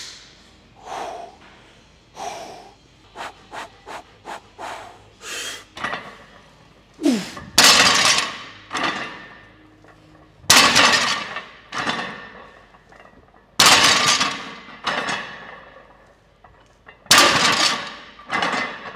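A 500 lb barbell deadlifted for reps: the loaded plates bang down on the floor four times, about three seconds apart, each impact ringing on briefly. Short sharp breaths come before the first rep, and a breath or grunt comes with each pull.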